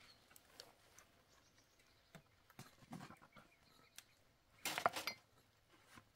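Drinking glasses being hand-washed in a metal tray: faint scattered clinks and rubbing sounds, with a louder clatter of glass about five seconds in.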